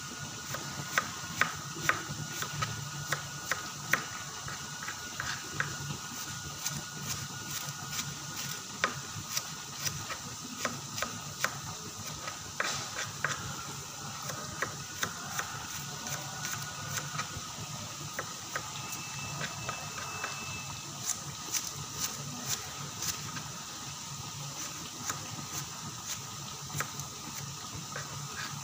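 Sliced Sumenep shallots deep-frying in a large wok of hot oil: a steady sizzle with irregular sharp pops and crackles, several a second.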